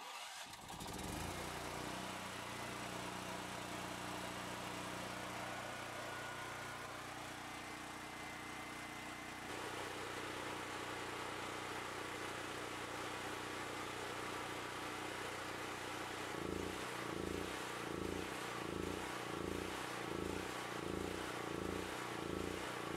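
Predator generator's 420cc single-cylinder gasoline engine starting on its electric starter and running steadily with no load. About two-thirds of the way through it begins to surge in a regular pulse, about one and a half a second, as it runs the carburetor dry with the fuel valve shut.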